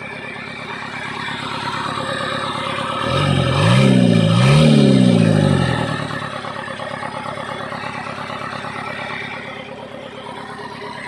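Toyota Land Cruiser FJ40 hardtop's swapped-in 13B diesel engine running, revved twice in quick succession about three seconds in, rising and falling in pitch each time, then settling back to idle.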